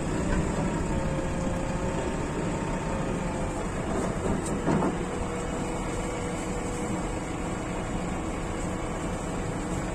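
JCB 3DX Plus backhoe loader's diesel engine running steadily, with a thin whine over the low rumble and a brief louder moment about halfway through.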